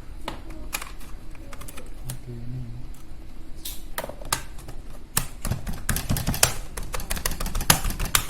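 Toshiba Satellite C640 laptop clicking and tapping irregularly, like keys and plastic casing being pressed, with the clicks coming thicker and louder for the last three seconds.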